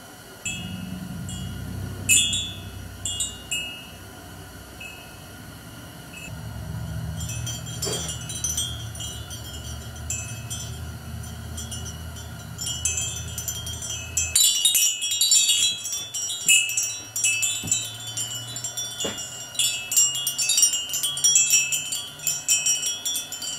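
Hand-made wind chime of six 3/4-inch copper-pipe tubes, cut 5 to 7½ inches long, ringing as the tubes knock together. The strikes are sparse at first, then a rapid jangle of overlapping strikes starts about two-thirds of the way in. A low rumble runs under the first part and stops suddenly.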